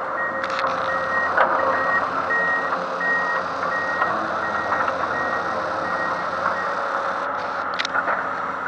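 Backup alarm on an amphibious excavator beeping steadily about twice a second over its running engine, the beeping stopping shortly before a few short knocks near the end.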